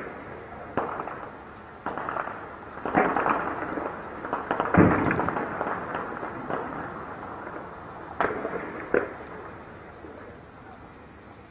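Gunfire in a built-up area: single shots and short ragged bursts, each trailing off in echo, with a heavier, deeper bang about five seconds in. The shooting thins out after about nine seconds.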